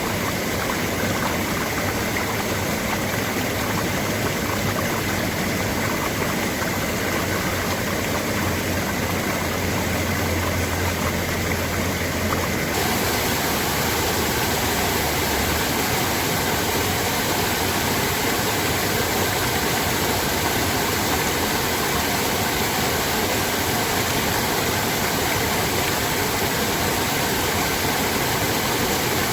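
Rushing water from a stream or small waterfall, a steady loud hiss; its tone turns brighter abruptly about thirteen seconds in.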